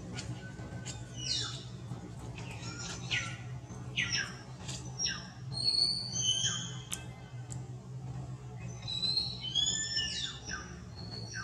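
A series of high-pitched animal calls: short squeals and chirps that fall in pitch, with a few clear whistled notes around the middle and again near the end.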